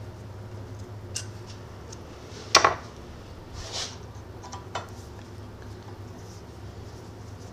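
Metal clinks and clicks from hex-key wrenches and a lathe's back gear guard being unscrewed and lifted off the headstock, with one loud metal clank about two and a half seconds in.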